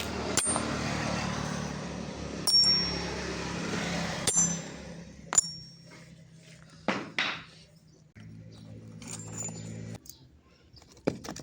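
Steel struck sharply four times, each strike leaving a brief high metallic ring, over a steady hiss and low hum during the first half. Fainter knocks and clinks follow.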